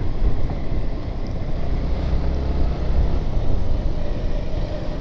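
Motorcycle on the move: a steady low rumble of engine, road and wind noise on the microphone while riding.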